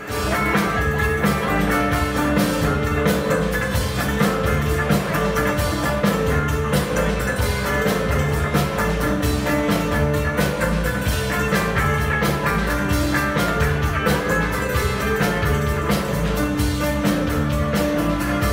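Live amplified band playing an up-tempo rock-flavoured song, with electric guitar, fiddle and a steady drum beat.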